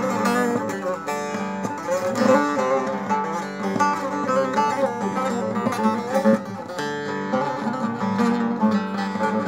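Long-neck bağlama with a bowl of 43 mulberry staves, strummed quickly in a folk tune. The melody runs over a steady drone.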